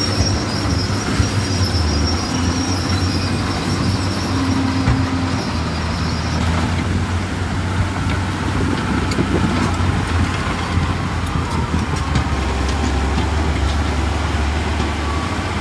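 Bulldozer's diesel engine running steadily under load, with a high-pitched metallic squeal of the tracks that stops about six seconds in.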